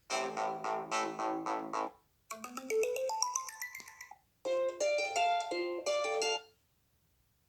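Alcatel 3T 8 ringtones: three short melodic snippets of about two seconds each, one after another with brief silent gaps, each with a different tune, stopping about six and a half seconds in.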